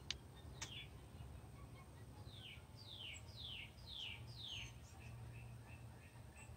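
A bird singing a run of five clear downslurred whistled notes, about two a second, starting a couple of seconds in. Underneath is a low steady rumble, and there are two sharp clicks right at the start.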